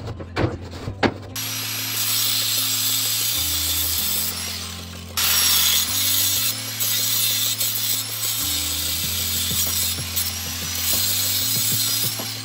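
Background music with a bass line that changes note every second or two, over a steady rasping, mechanical noise that dips briefly about five seconds in.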